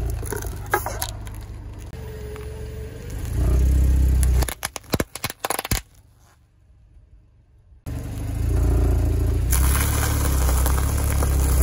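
A car rolls slowly over small objects on asphalt, with a low steady rumble. About four and a half seconds in, a run of sharp cracks and scraping comes as something is crushed under the tyre. Then there are a couple of seconds of near quiet before the rumble returns.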